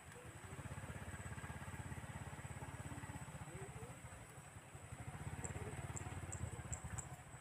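A small engine running steadily with a low, pulsing sound, dipping briefly about halfway through. A thin high whine runs under it, and near the end a string of quick, evenly spaced high ticks begins.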